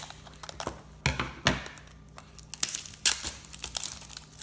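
Toy packaging being handled and torn open: crinkling and tearing with a run of sharp clicks and crackles, loudest about three seconds in.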